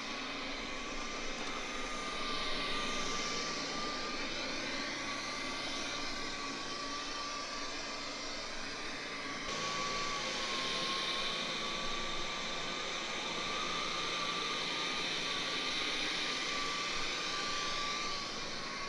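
Coredy L900 robot vacuum running: a steady whirring of its suction fan with a thin whine that wavers slightly in pitch, the hiss shifting as the robot moves about.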